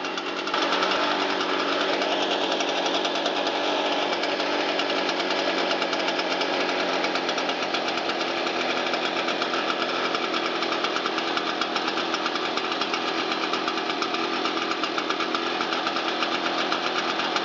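Shindaiwa EB802RT backpack blower's two-stroke engine running steadily after repair, getting louder about half a second in and then holding an even speed.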